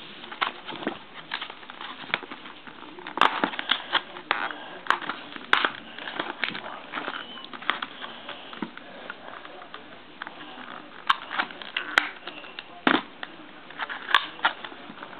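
Hands pulling and prying at a tightly sealed plastic blister pack: irregular crackles, clicks and taps of stiff plastic.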